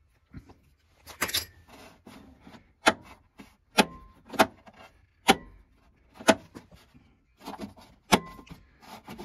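Hand-turned removable key in a Flaming River heavy-duty battery disconnect switch, worked in its socket while the switch is tested. It gives a run of sharp metallic clicks and knocks at uneven spacing, several with a short ring.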